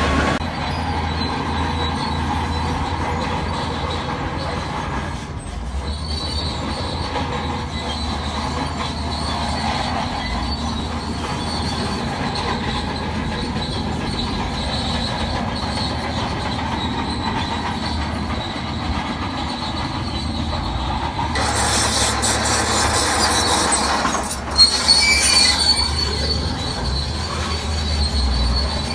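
Crawler bulldozer working, its diesel engine droning under a steady high metallic squeal from the steel tracks. A hiss rises in the upper range for about three seconds late on, followed by a sharp clank.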